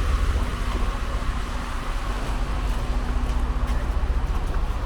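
Outdoor city street ambience: a steady low rumble of road traffic, with a faint steady engine-like hum that fades out about three and a half seconds in.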